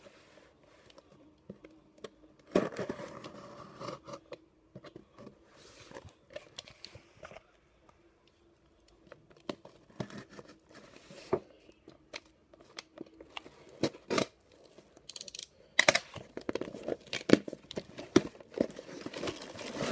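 Utility knife slitting packing tape on a cardboard shipping box, then tape and cardboard tearing as the flaps are pulled open, with scattered scrapes and clicks from handling the box. The loudest tearing bursts come in the last few seconds.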